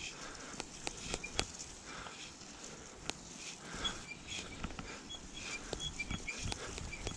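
E-bike rolling along a forest trail: tyres crackling over twigs and ground debris, with many sharp clicks and rattles from the bike and short high chirps.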